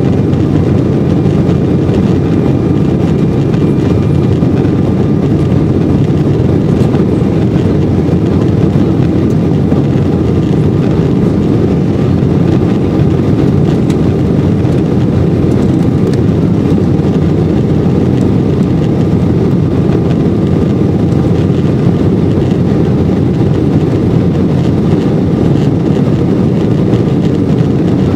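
Steady, low-pitched cabin noise of an Embraer 190 climbing out, heard from a window seat: its underwing General Electric CF34 turbofans running at climb power with rushing air over the fuselage.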